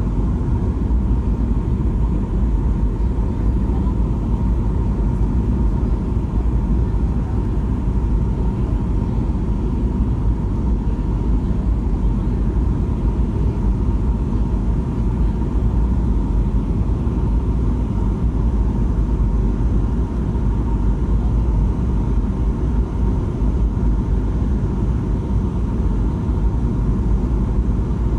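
Airliner cabin noise in flight: a steady low roar of the jet engines and airflow, with a faint steady whine riding on it.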